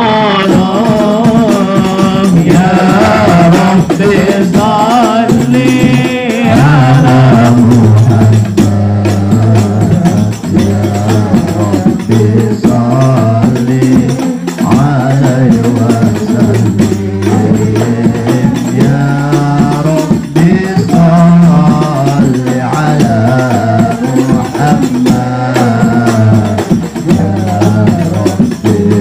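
A hadrah ensemble of hand-struck frame drums (rebana) and a goblet drum beating a steady rhythm under male voices singing Arabic sholawat, praise verses for the Prophet.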